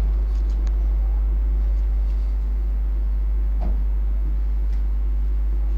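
Steady low electrical hum, with faint scratches of chalk on a chalkboard.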